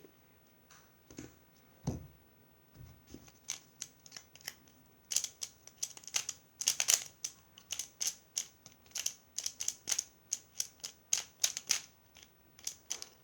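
Plastic Pyraminx speed cube being turned fast during a timed solve: a few scattered clicks at first, then from about five seconds in a quick, dense run of sharp clicks and clacks as the layers and tips are flicked.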